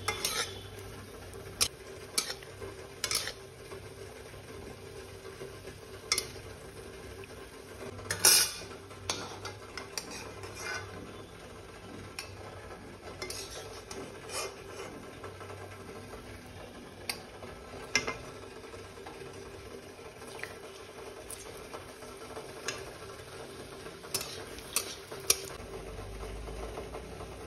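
Metal spatula scraping and tapping against a steel wok as kala jamun balls are turned while frying gently in a little ghee, with a faint sizzle. Sharp clinks come scattered and irregular, the loudest about eight seconds in, over a steady low hum.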